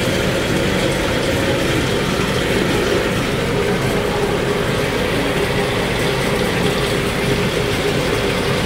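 Electric açaí pulping machine running steadily: a continuous mechanical hum with one constant tone, beating açaí fruit into pulp.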